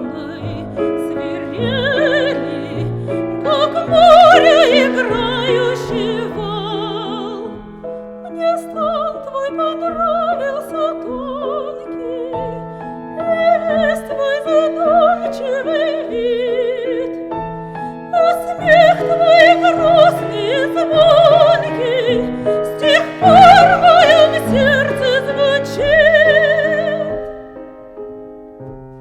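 Classical female voice singing a romance with wide vibrato in an operatic style, over piano accompaniment.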